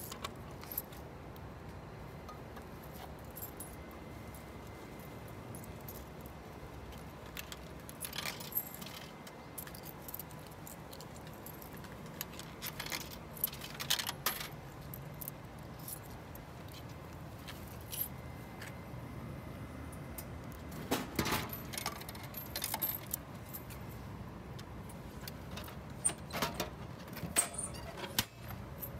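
Coins jingling and clinking as they are handled and fed into a drinks vending machine, in scattered short bursts of metallic clicks, over a low steady background hum.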